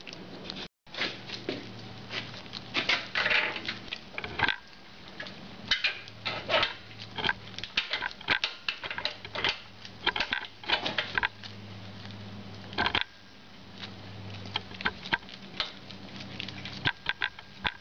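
Irregular small clicks, taps and scrapes of gloved hands handling the metal fork top cap and handlebar hardware at the top of a motorcycle's front fork, with a faint steady low hum underneath.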